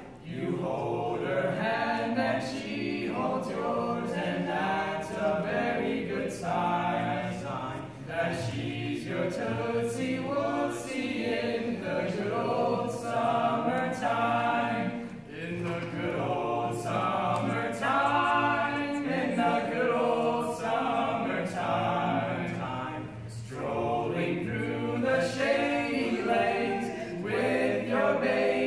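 Male barbershop quartet singing a cappella in four-part harmony, with short breaks between phrases.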